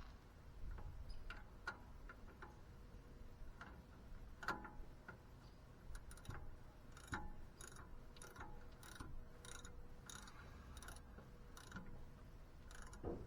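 Faint, irregular metallic clicks and taps of hand tools at work under the truck, fitting the starter and its bolts. The clicks come most often in the second half, about two a second at most.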